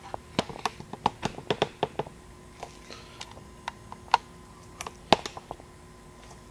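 Scattered light clicks and taps of metal being handled at the vise of a horizontal metal-cutting bandsaw, about a dozen at uneven spacing, the loudest a little after five seconds in.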